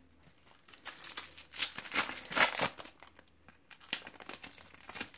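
Foil wrapper of a Panini trading-card pack crinkling and tearing as it is opened by hand, in a run of rustles that is loudest about two seconds in.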